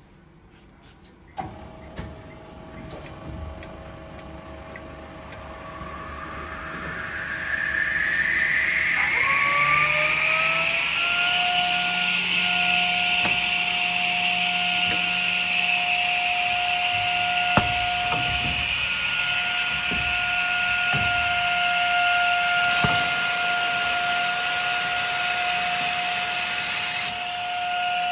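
Toughcut COBALT 25 semi-auto edgebander's motors starting up: a click about a second in, then a whine that rises in pitch over several seconds as the motors spin up, settling into a steady high running whine with no panel yet going through.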